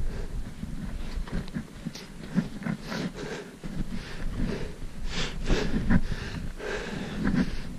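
A hiker's footsteps crunching in snow, a step about every half second to a second, with the walker's breathing.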